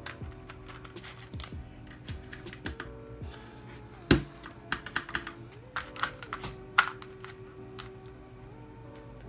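Plastic keycaps being handled and pressed onto the switches of a mechanical keyboard: scattered clicks and taps, with the loudest snaps about four and seven seconds in.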